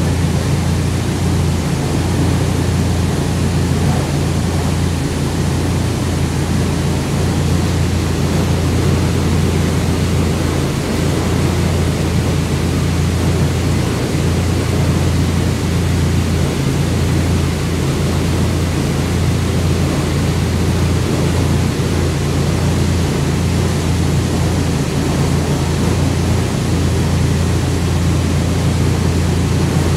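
Fiat Punto GT running on a chassis dynamometer: a constant low drone with a rushing hiss over it, the revs holding steady without rising or falling.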